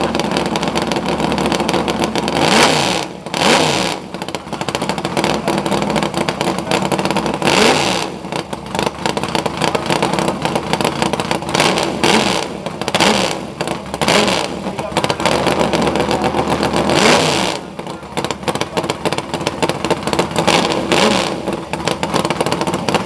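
Drag race car's engine idling rough and revved in repeated short blips, some in quick pairs, each one rising in pitch and falling back to idle.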